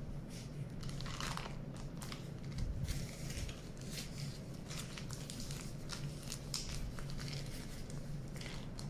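Plastic zip-top bag crinkling and rustling in irregular bursts as rice-flour cold porcelain dough is kneaded and squeezed inside it by hand.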